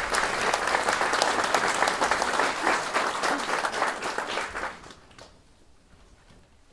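Audience applauding, the clapping dying away after about five seconds into near quiet.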